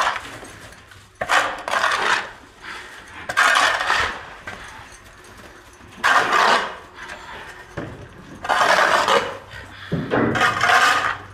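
Iron shovel scraping hardened, caked manure off a barn floor: about five separate scraping strokes, a couple of seconds apart.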